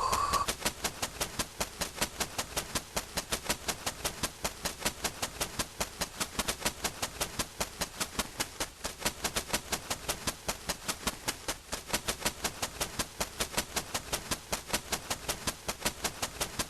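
A steady, even run of sharp clicks, about five a second.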